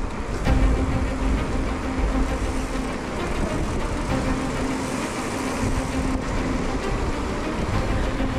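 A motor engine running with a steady hum over a low rumble.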